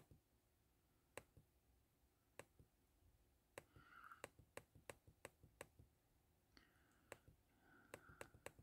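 Faint, irregular clicks on a laptop, about twenty in all, sparse at first and coming quicker in the middle.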